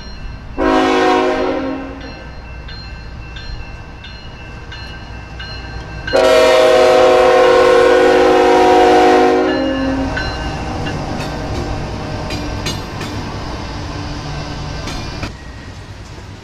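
Canadian National freight locomotive's multi-chime air horn: a short blast about half a second in, then a long blast of about three seconds starting around six seconds in. A grade-crossing bell rings about twice a second through the first few seconds. Later the locomotives roll past with a rumble and wheels clicking over the rail joints.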